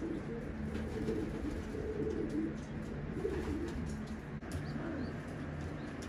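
Racing pigeons cooing softly in a loft: low, repeated murmuring coos.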